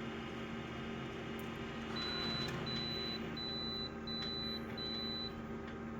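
Photocopier running with a steady hum; about two seconds in its machine noise rises and it gives five short high beeps in an even row.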